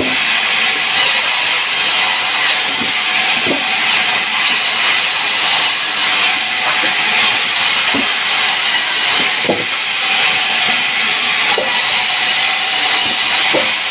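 Sawmill saw cutting a sengon (albizia) log: a steady, loud hissing rush with a few scattered knocks.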